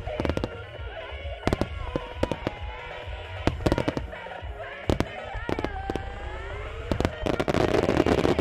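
Aerial fireworks shells bursting: sharp booms roughly once a second, with tones gliding in pitch between them. From about seven seconds in, a loud, dense crackling sets in.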